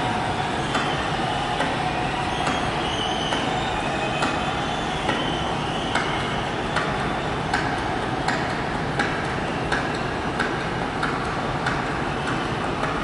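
Soundtrack of a stage-performance film played through hall speakers: a sharp click about every three-quarters of a second over a steady rushing noise.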